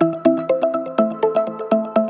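Background music: an even run of short pitched notes, about five a second, moving to a new set of notes about a second in.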